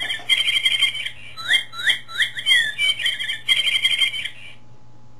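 Toy bird's electronic birdsong: a phrase of quick rising and falling chirps ending in a rapid trill. The phrase repeats note for note and cuts off suddenly about four and a half seconds in.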